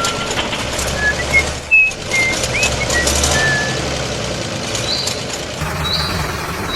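Steady engine-like running noise with short whistled chirps scattered through the first half, and a steady high-pitched tone coming in near the end.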